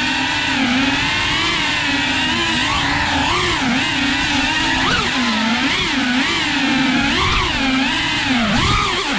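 FPV quadcopter's brushless motors and propellers whining, heard from its onboard camera, the pitch constantly rising and falling with throttle as it manoeuvres through tight gaps.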